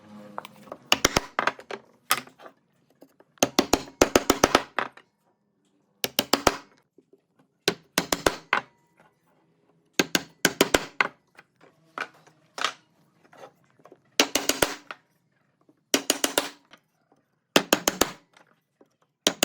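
Short bursts of rapid, sharp knocks, several to a burst, repeating every second or two with quiet gaps between.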